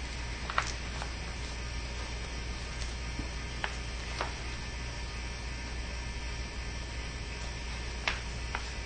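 Steady low mains hum with a handful of short clicks and scratches from a hobby knife cutting through duct tape on a poncho. The loudest clicks come about half a second in and near the end.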